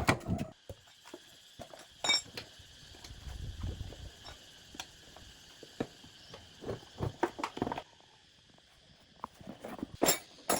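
Irregular metallic clinks and knocks, like hand tools being picked up and set down on metal, with a short low rumble a few seconds in and a denser run of knocks near the end.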